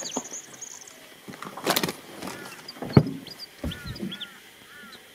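A wire-framed redclaw pot being handled in an aluminium boat: scattered knocks and rattles, the sharpest about three seconds in.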